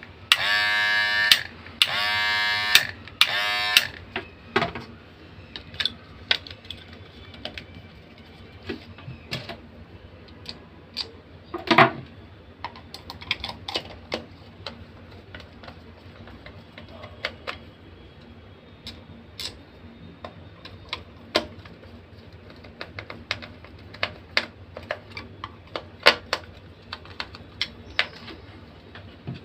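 Electric hair trimmer's AC motor buzzing in about four short bursts as it is switched on and off, then a long run of light clicks and taps from the trimmer being handled.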